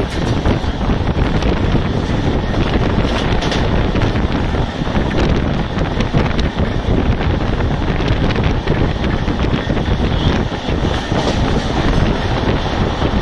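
An express train running at speed on LHB coaches, heard from the open coach doorway: loud steady wheel-and-rail running noise with heavy wind buffeting on the microphone.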